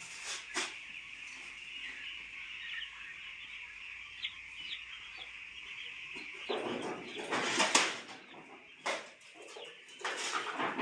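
A shed full of young broiler chicks peeping continuously. There are louder bursts of rustling and flapping in the second half.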